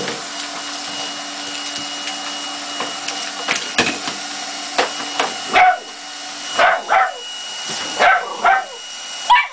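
Handheld window vacuum running with a steady hum while Cane Corso puppies bark and yap at it. The short, high barks start about halfway through and come every second or so.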